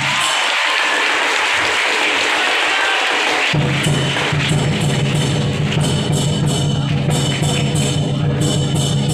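Lion dance percussion: a big drum pounding with clashing cymbals in a steady beat. The drum drops out for the first few seconds, leaving a wash of cymbals, and comes back in about three and a half seconds in.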